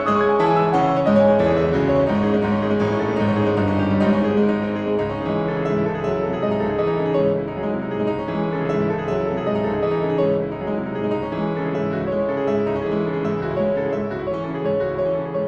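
Background piano music, steady notes played throughout.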